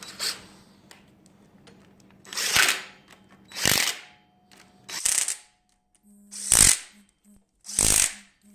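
Power tool driving the flywheel bolts on an LS V8 in five short bursts about a second and a half apart.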